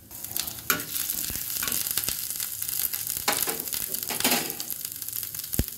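Grated ginger sizzling and frying in hot ghee in a small pan, starting suddenly as it goes in. Several short scraping knocks, about one a second, as it is stirred.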